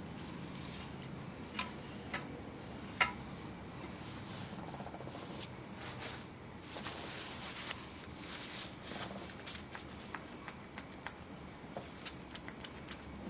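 Light clicks, taps and scraping from a graphics card and its small parts being handled during a thermal paste replacement. One sharper click comes about three seconds in, and a quick run of small ticks comes near the end.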